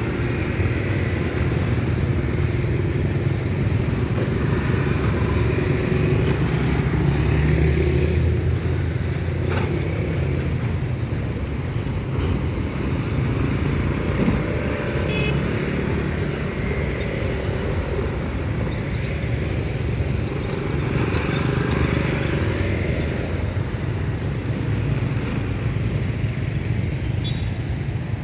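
Street traffic: motor scooters and cars passing, a steady run of small engines that swells and fades as vehicles go by.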